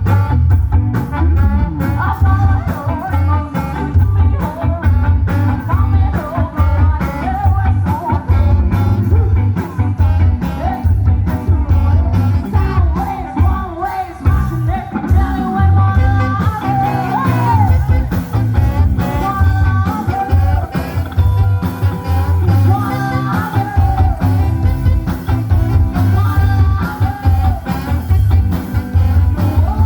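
Background music with a steady beat, bass and a singing voice.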